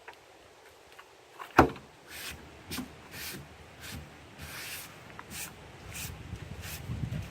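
A sharp knock about a second and a half in, then a run of short scuffs and rustles, with a low rumble building near the end.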